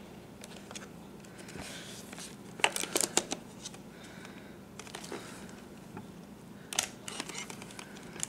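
Clicks and plastic rattles from a camcorder being handled and operated, in a cluster about two and a half to three seconds in and another near seven seconds, over a faint steady hum.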